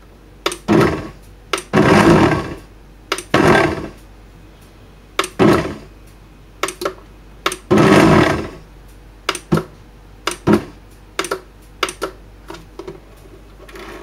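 Bodum blender's motor run in short pulses, each about half a second to a second long and spaced irregularly, with sharp clicks of the pulse button between them. Near the end there is a run of shorter clicks.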